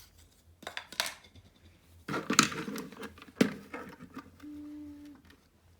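Clicks, knocks and rustling of small plastic parts being handled, as a battery is taken out of a device's battery compartment. A brief steady low hum sounds for under a second near the end.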